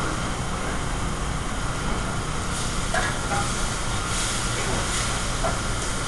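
Steady rushing noise of a restaurant kitchen's exhaust hood over a working cooking line, with faint sizzling and a few light clinks of utensils.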